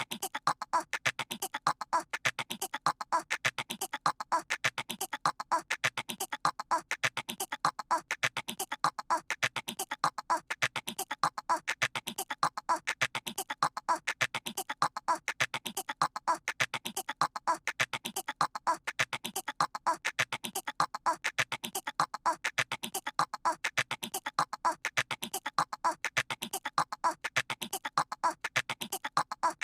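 A cartoon toddler's voice imitating a squirrel: rapid, even chattering pulses. The same short clip repeats in a loop about every two seconds.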